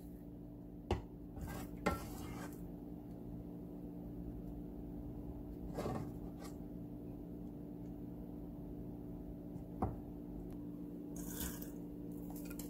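A utensil clinking and scraping now and then against a glass baking dish as thick rabri is spread over the bread: a handful of separate short clicks and one brief scrape near the end, over a steady low hum.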